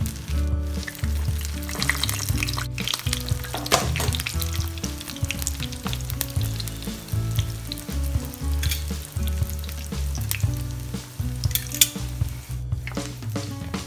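Vegetable spring rolls frying in hot oil in a skillet, a steady sizzle full of small crackles and pops, with background music carrying a steady low bass line underneath; the sound breaks off briefly twice at edit cuts.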